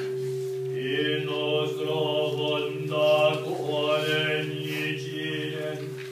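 Congregation chanting in unison in a Nichiren Buddhist ceremony: a steady, droning group chant on a near-constant pitch, with more voices rising in about a second in.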